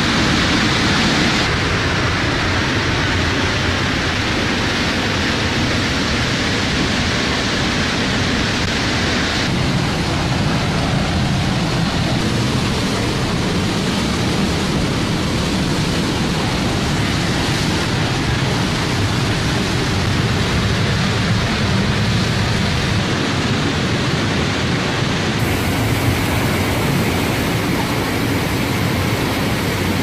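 Waterfall heard up close from beside and beneath the falling water: a loud, steady rush of water. The tone of the rush changes abruptly about three times where separate takes are cut together.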